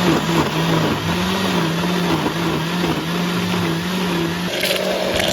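Countertop blender running, puréeing cut mango with a little water. The motor's low hum wavers, then its pitch jumps higher about four and a half seconds in as the load eases.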